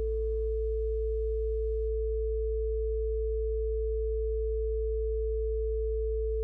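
A steady 55 Hz pure tone, a constant low hum, with a second steady higher tone held over it. The last of a fading instrument note dies away in about the first half second.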